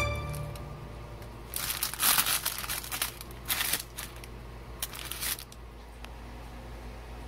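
Parchment paper crinkling in three short bouts as baked bagels are handled and lifted off a paper-lined baking sheet.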